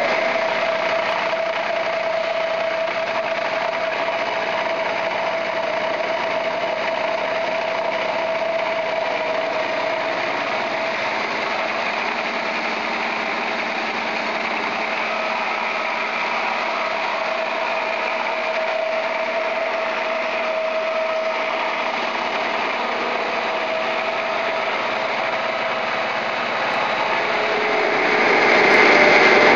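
1973 LeBlond NK 4025 heavy-duty geared-head engine lathe running under power, its headstock gearing giving a steady whine over a mechanical hum. Near the end it grows louder and a lower whine comes in.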